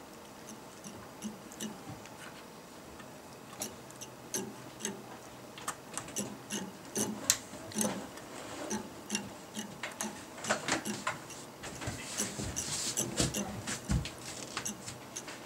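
Cat licking at a computer case fan through its wire grille: irregular wet clicks and smacks of the tongue, coming more thickly for a few seconds past the middle.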